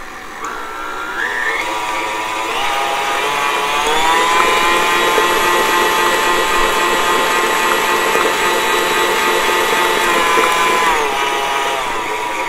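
Small electric motor of a kitchen appliance, such as a mixer or blender, speeding up with a rising whine a few seconds in, running steadily at high speed, then slowing down near the end.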